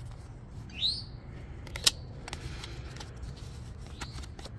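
A small bird chirps once, briefly and falling in pitch, about a second in, and more faintly near the end. Between the chirps come a few sharp clicks of stiff cardboard baseball cards being flipped by hand, the loudest about two seconds in, over a steady low rumble.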